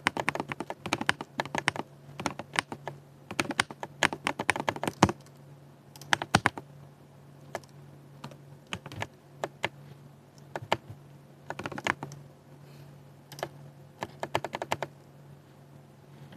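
60% mechanical keyboard being typed on in quick flurries of clacking keystrokes, broken by short pauses. A faint steady low hum sits underneath.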